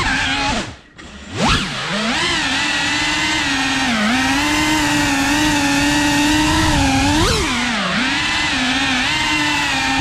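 Cinewhoop FPV drone's motors and ducted propellers whining as it flies. The pitch drops sharply as the throttle is cut about a second in, then shoots back up and holds fairly steady, with small dips and a quick rise and fall a little past the middle.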